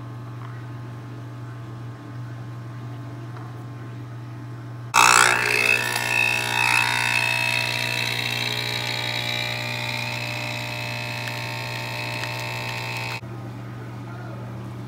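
Espresso machine running while espresso pours into a mug. It starts abruptly about five seconds in, runs for about eight seconds and cuts off suddenly, over a low steady hum.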